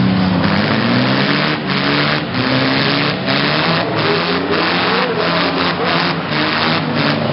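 Several demolition derby cars' engines running and revving together, a dense, steady engine din with pitches rising and falling as the drivers work the throttles.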